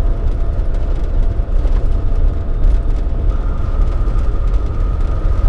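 Steady low rumble of engine and road noise inside a moving vehicle's cabin, with a faint high whine that shifts pitch about halfway through.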